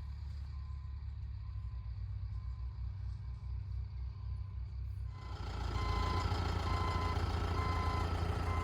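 A vehicle engine running steadily, with its reversing alarm beeping about once a second. The engine and beeps get louder about five seconds in as the vehicle comes closer or works harder.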